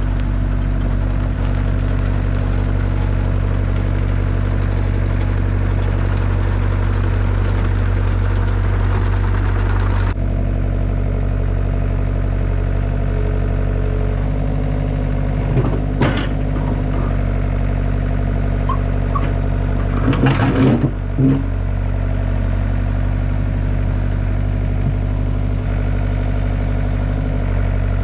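Caterpillar 307 SSR mini excavator's diesel engine running steadily, easing to a quieter, lower running about ten seconds in. Sharp metallic clanks come once around sixteen seconds in and in a quick cluster around twenty seconds in.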